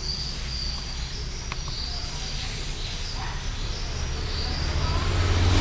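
Steady low hum and background hiss of the recording room, with faint high-pitched tones coming and going and a faint click about a second and a half in.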